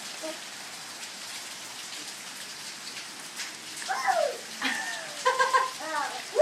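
Steady rain falling, an even hiss of drops. In the second half a high voice, likely a young child's, vocalizes without words in short rising and falling sounds.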